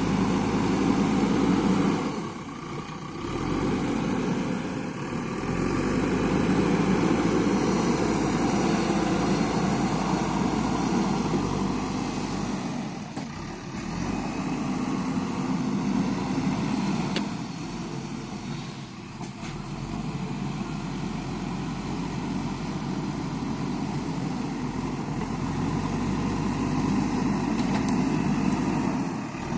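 JCB backhoe loader's diesel engine running steadily while it works, easing off briefly a few times.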